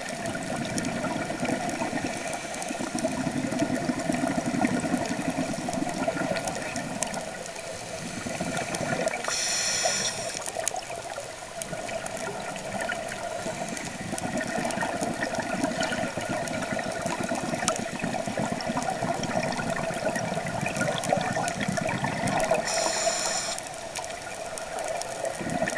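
Scuba diver breathing through a regulator, heard underwater: long stretches of rumbling exhaled bubbles, broken twice by a short hiss of inhalation, about ten seconds in and near the end. A steady hum runs underneath.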